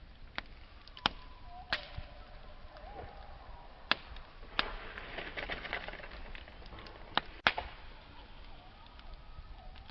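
Wood campfire crackling, with sharp loud pops every second or two and a denser patch of fine crackle about halfway through. A faint wavering whistle comes and goes beneath it.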